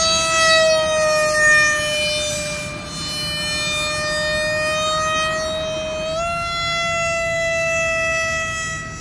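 Electric motor and rear pusher propeller of a foam-board RC F-18 whining steadily in flight. The pitch sags slowly, then jumps up about six seconds in.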